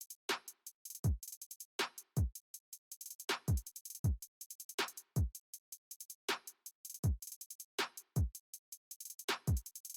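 Electronic background music with a drum-machine beat: deep kicks that drop in pitch, over a quick run of hi-hat ticks.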